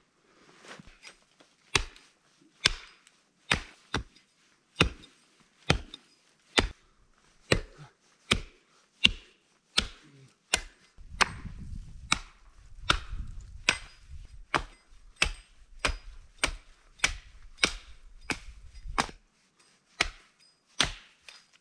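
Axe chopping the branches off a fallen conifer: a steady run of sharp chops at about one a second, cutting wood for building a shelter.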